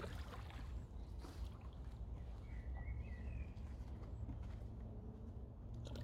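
Outdoor park ambience: a steady low rumble, a few footsteps near the start, and a short bird chirp about halfway through.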